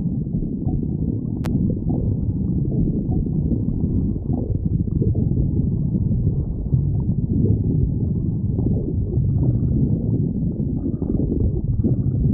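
A raccoon's stomach growling: continuous low rumbling with many short, irregular gurgles.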